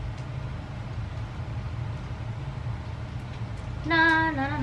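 A steady low background hum; about four seconds in, a woman starts humming a tune in held, stepping notes, louder than the hum.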